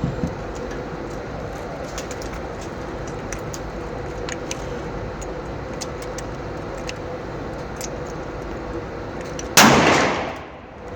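A single close pistol shot about nine and a half seconds in, echoing for about a second, over steady range background with faint sharp pops and ticks.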